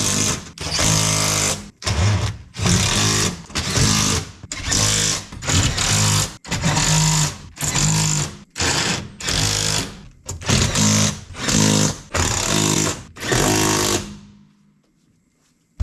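Power driver running fasteners in about fourteen short bursts, each under a second, as a sheet-metal hood panel is fastened to a steel generator enclosure; the bursts stop about fourteen seconds in.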